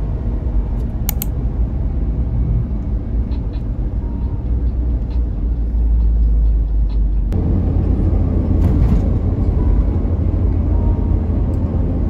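Steady low road and engine rumble of a moving car, heard from inside the cabin. It gets a little louder about seven seconds in.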